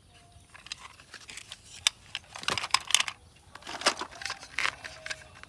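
Handling noise from small plastic toy vehicles being picked up and moved: scattered clicks and crinkly rustling, busiest in the middle of the stretch.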